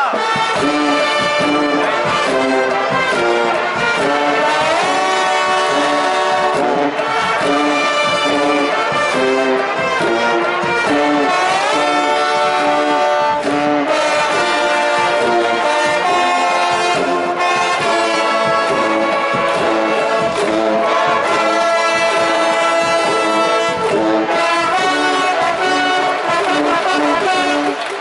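A cheering brass band of trumpets and trombones playing a continuous, repeating cheer tune for a baseball team, the kind played in the stands at Koshien high-school games.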